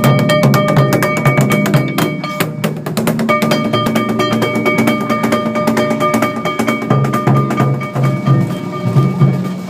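Yamakasa festival float music: taiko drums beaten in a fast, dense rhythm, with a steady high ringing tone over them that drops out briefly about two and a half seconds in.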